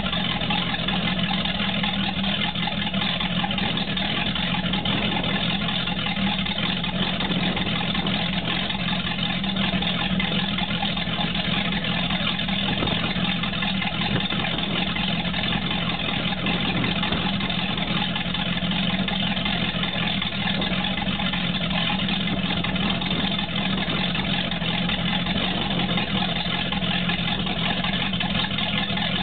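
1994 Baja 272's MerCruiser sterndrive engine idling steadily on the trailer, run on a garden hose to warm it up for an oil change, with water splashing out under the Bravo outdrive.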